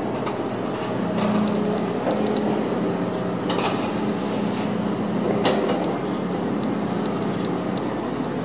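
A crawler crane's engine running steadily with a low hum, and two sharp metallic clanks about three and a half and five and a half seconds in, from the chain sling and its hook knocking on the steel plates as it is worked loose.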